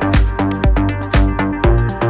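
Background electronic dance music with a steady kick drum, about two beats a second, and bright percussion between the beats.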